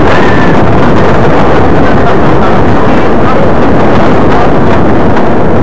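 Wooden roller coaster train rattling and rumbling along its track at speed, mixed with heavy wind buffeting the cheap head-worn camera microphone. The sound is steady and so loud that it sits close to the microphone's limit.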